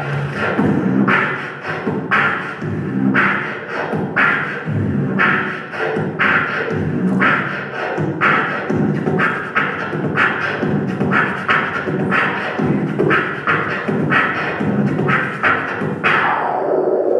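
A man beatboxing into a handheld microphone: mouth-made kick-drum and snare sounds with quick clicks between them in a steady beat, about one strong hit a second. Near the end a vocal sweep falls in pitch.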